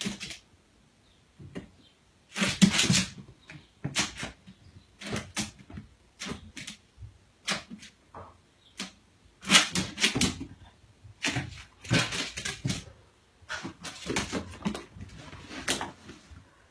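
A small fluffy dog bouncing and pouncing at its reflection: short, irregular thumps and clicks of paws on a hardwood floor, in clusters a second or two apart.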